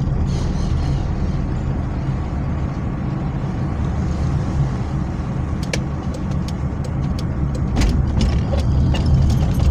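Car engine and road noise from inside a moving car, a steady low drone. Scattered light clicks and knocks come in from about six seconds in and grow more frequent near the end.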